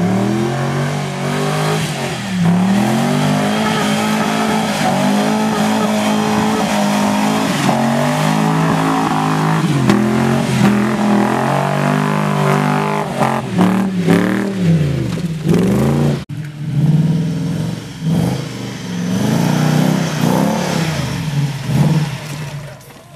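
Modified off-road 4x4 truck engines revving hard, rising and falling again and again as the trucks climb a muddy slope with their wheels spinning. The revving breaks off suddenly about two-thirds of the way through, then picks up again.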